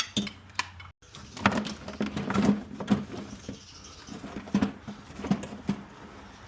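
Irregular metallic clicks and knocks of a fan clutch holder and wrench on the fan clutch as it is tightened back down.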